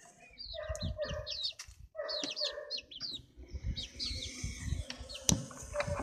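Chickens clucking and calling, with many short high chirps and two longer, drawn-out calls in the first half, over low thuds of handling and one sharp click near the end.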